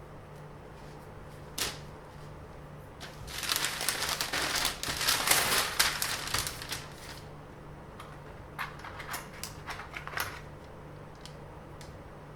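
Handling noise: a click, then a dense run of crackly rustling and clicking for about four seconds, followed by a few scattered clicks, over a steady low hum.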